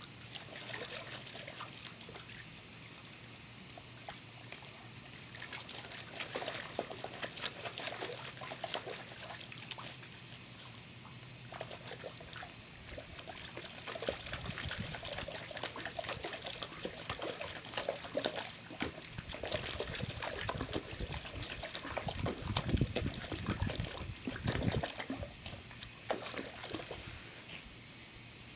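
A small dog splashing and pawing in a shallow plastic saucer of water: irregular slaps and sloshes, growing busier and louder about halfway through, loudest a few seconds before the end.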